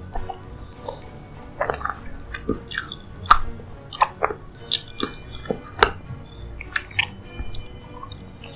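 A person chewing dessert close to the microphone: irregular wet mouth clicks and smacks, the loudest about three seconds in. Soft background music underneath.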